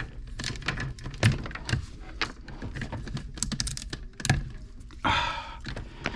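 Adhesive tape being peeled off an Ethernet cable, with a run of small clicks and knocks from handling the cable; a short rasp about five seconds in.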